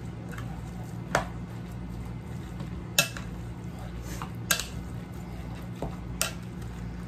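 A spoon stirring a wet ground pork and minced carrot filling in a bowl, with four sharp knocks of the spoon against the bowl, over a steady low hum.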